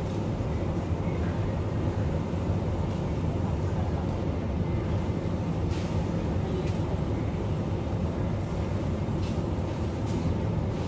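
Steady low hum of supermarket ambience: open refrigerated produce cases and air handling running, with a few faint clicks.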